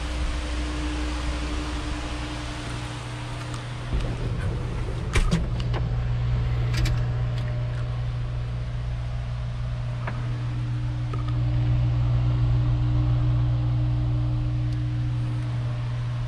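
Steady low mechanical hum, a little louder for a few seconds past the middle, with a few light clicks and knocks between about four and seven seconds in.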